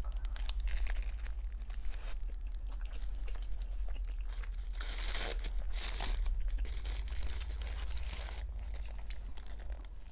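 Close-miked eating of a sushi burrito: bites and crunchy chewing through nori and crispy tempura, mixed with the paper wrapper crinkling and tearing as it is handled, the crackling loudest about five to six seconds in. A steady low hum runs underneath.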